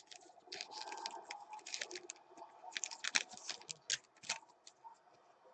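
Trading cards being handled and flipped through by hand: a run of soft, irregular clicks and rustles as the cards of a freshly opened pack are sorted.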